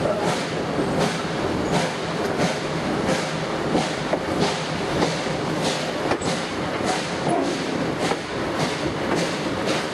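A Reading & Northern steam locomotive working ahead of the coach, its exhaust beating about two or three times a second over the steady rumble of the coach's wheels on the rails.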